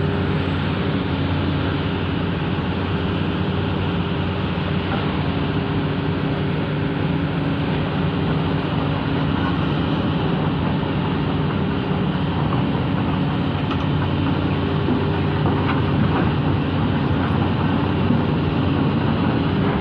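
Kobelco hydraulic excavator's diesel engine running steadily with a constant low hum.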